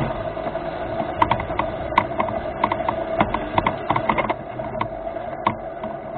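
Small electric drive motors of a remote-controlled rover whining at a steady pitch, with irregular clicks and rattles over it, easing off a little after about four seconds.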